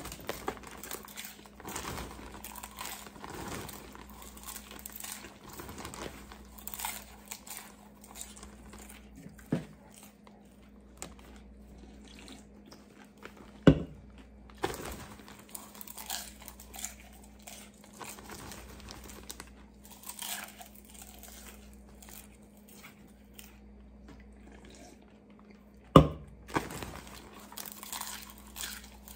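A plastic bag of popcorn crinkling and rustling as a hand digs into it, with popcorn being crunched and chewed. Two sharp knocks, about halfway and near the end, are the loudest sounds.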